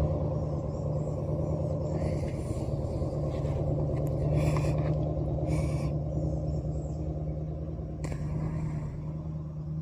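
A motor vehicle engine running at a steady pitch, with a few brief rustling or clicking noises over it.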